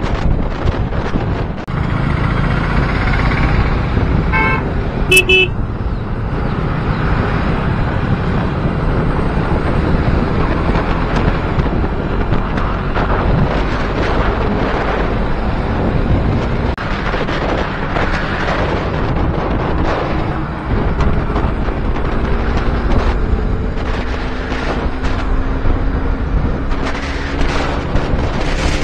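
Sport motorcycle running at speed through traffic, with heavy wind rush on the microphone; a vehicle horn honks briefly about four to five seconds in, and the engine pitch rises near the end as the bike accelerates.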